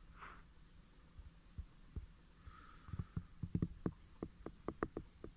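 Handling noise: a low rumble, then from about halfway through a run of soft, quick knocks, about three or four a second.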